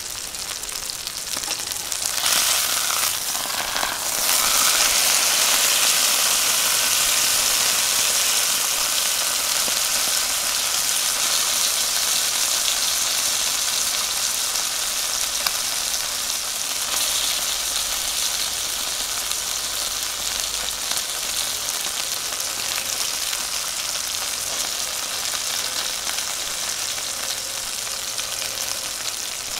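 Wagyu ribeye steak sizzling in hot fat in a cast-iron skillet. The frying grows louder about two seconds in and again about four seconds in, then slowly eases off.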